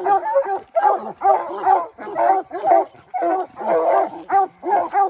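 Coonhounds, Black and Tans and a redbone, barking treed at the base of a tree: a fast, continuous run of overlapping chop barks, about two to three a second. One hound, Doc, has a hoarse bark.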